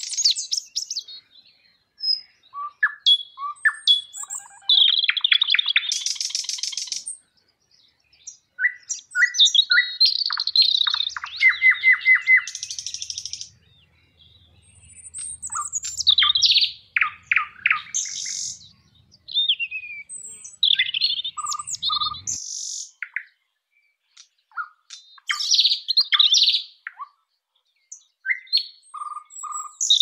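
Common nightingale singing: varied phrases of whistles and rapid repeated notes, broken by short pauses.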